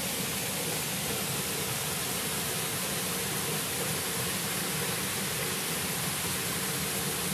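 Steady rush of Dayhag Falls, a small waterfall, pouring off a rock ledge into its pool.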